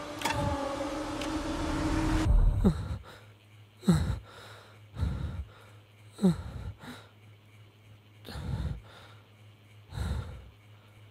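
A held musical drone cuts off abruptly about two seconds in. Then comes a man's heavy, gasping breathing, one laboured breath every second or two, with a faint steady hum underneath.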